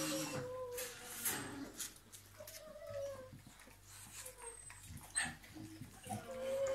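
English bulldog puppy whining in several short, high whimpers, with a few sharp clicks in between, the sharpest about five seconds in.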